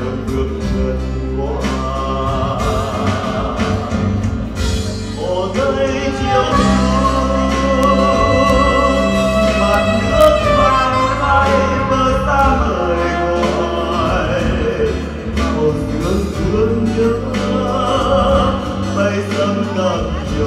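Live music: a man sings a slow ballad into a microphone, accompanied by saxophone and acoustic guitar.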